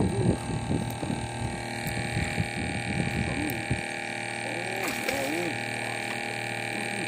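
A steady hum of several held tones, with muffled voices talking over it in the first few seconds and again about five seconds in.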